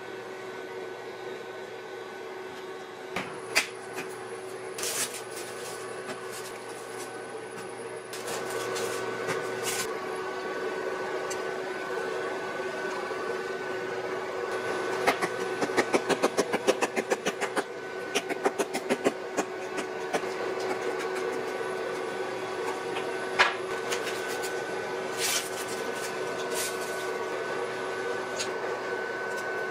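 Spaghetti cooking in cream sauce in a frying pan on a cooktop, over a steady appliance hum, with wooden chopsticks stirring and tapping the noodles. A quick run of clicks and taps comes about halfway through.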